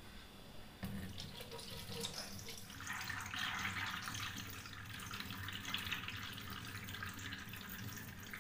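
Water pouring from a tilted steel vessel into a stainless-steel sink. It starts about a second in and runs more strongly from about three seconds in. This is the clear water being drained off settled maida (wheat-flour) milk.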